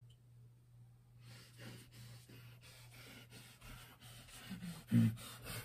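Quiet room tone with a steady low hum and faint scuffs and clicks as a person moves about in a small room. A short, louder low sound comes about five seconds in.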